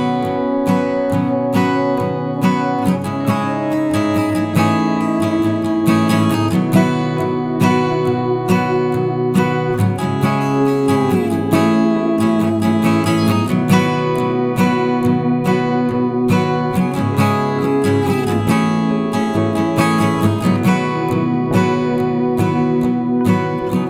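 Background music played on acoustic guitar, with steady strumming and plucked notes, some of them sliding in pitch.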